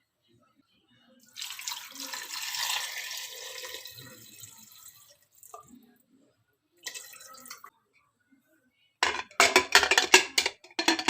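Water running from a tap for a few seconds, tapering off, followed near the end by a quick run of clattering knocks.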